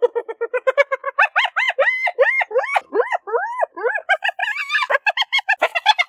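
Spotted hyenas giggling: quick runs of short staccato hoots, then from about a second in a string of higher yelps that each rise and fall, with the fast staccato giggling coming back near the end.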